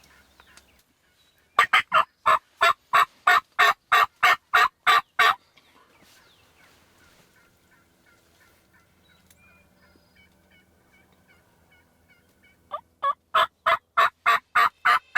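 A loud, evenly spaced series of about a dozen turkey yelps, about three a second. A second series starts near the end.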